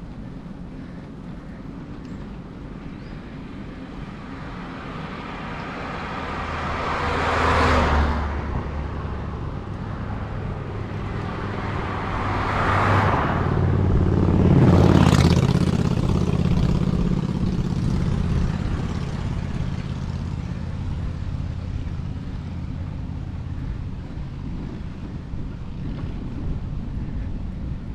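Cars passing by three times, each one rising to a peak and falling away, about a third of the way in and twice close together near the middle. Under them runs a steady low rumble of wind on the microphone and bike tyres rolling on asphalt.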